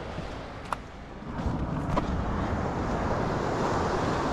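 Wind noise on the microphone over the steady wash of surf, with two faint clicks.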